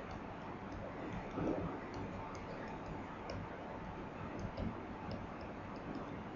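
Light, irregular clicks and taps of a pen stylus on a tablet screen while handwriting, over a steady low room hum.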